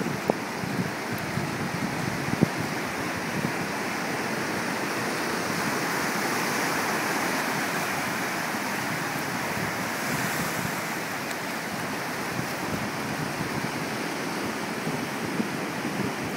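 Ocean surf breaking offshore and washing up over the sand in a steady rush, swelling a little about six seconds in, with wind buffeting the microphone.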